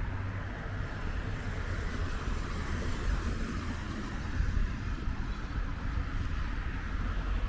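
Steady city road traffic: cars passing on a busy street, a continuous rumble and tyre hiss.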